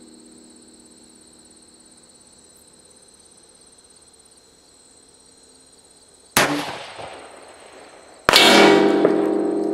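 A single 5.56 AR-15 rifle shot from a 16-inch, 1-in-9 twist Rock River Arms barrel firing a 77-grain bullet, about six seconds in. About two seconds later comes a louder sharp impact as the bullet strikes the hanging steel plate at 1,000 yards, and the plate rings on afterwards.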